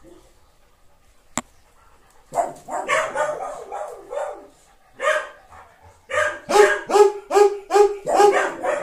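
Dog barking in short, repeated barks after a quiet start broken by a single click. The barks come faster and louder from about six seconds in.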